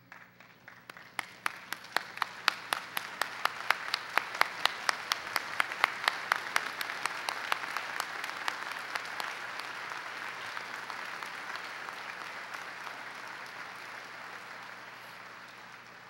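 A large audience giving a standing ovation: applause swells over the first few seconds and fades away near the end. One pair of hands claps sharply close by, about three times a second, for the first half.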